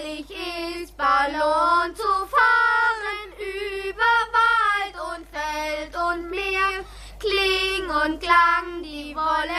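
A child singing a tune solo, one voice holding note after note.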